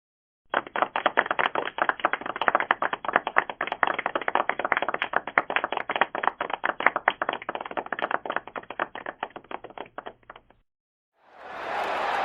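Applause of hand clapping, many separate claps in quick succession, thinning out and stopping about ten seconds in. Just before the end a denser applause from a larger crowd swells in.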